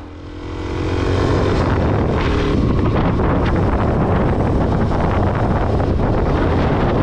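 Suzuki DR-Z400SM single-cylinder motorcycle riding along a road, with wind rushing over the microphone. The wind noise swells about a second in as the bike picks up speed, then holds steady and covers most of the engine.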